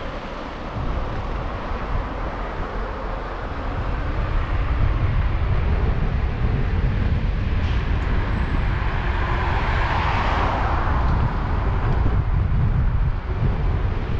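Wind rumbling on the microphone of a camera carried on a moving bicycle, mixed with road traffic. A car passes about ten seconds in, swelling and then fading.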